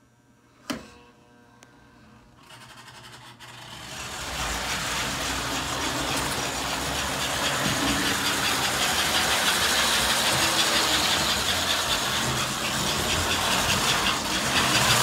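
American Flyer toy train running on its track, powered up from a 30B transformer: a click about a second in, then the locomotive's motor and wheels build up over a couple of seconds to a steady whir and rattle.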